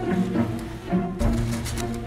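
Background music: pitched notes over a low bass line, with new notes coming about every half second.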